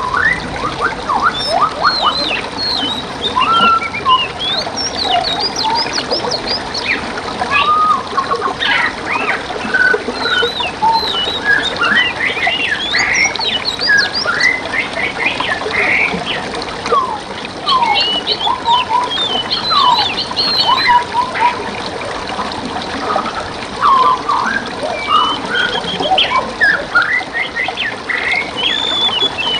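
A dense chorus of wild songbirds, with many overlapping whistles, chirps and trills, over the steady trickle of a forest stream.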